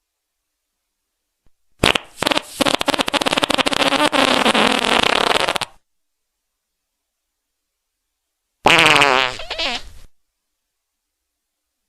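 Two fart sounds. A long fluttering one starts about two seconds in and lasts about four seconds, then a shorter one falls in pitch near the end.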